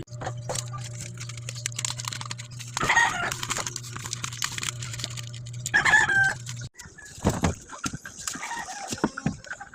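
Chicken calls: two loud ones, about three and six seconds in, over a steady low hum that stops suddenly after about six and a half seconds, with scattered small clicks.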